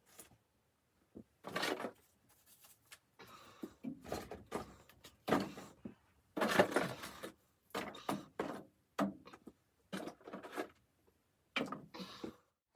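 Irregular handling noises: a string of short knocks, scrapes and rustles with near-silent gaps between them.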